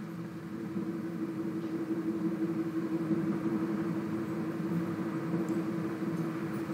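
A steady low hum over faint room noise.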